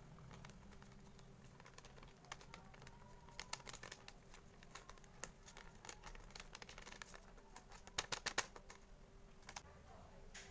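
Agar-agar powder sachet crinkling and rustling in the hands as it is tipped out and handled: a scatter of light crackles, with a louder cluster about eight seconds in.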